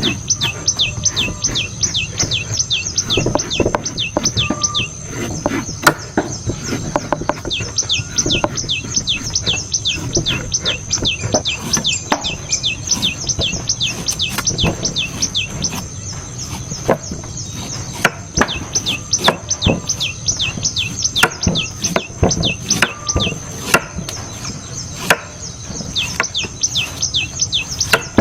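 Knife blade chopping into coconut, many sharp strikes in irregular quick succession. Behind it, a steady high drone and runs of quick, falling high chirps that come and go.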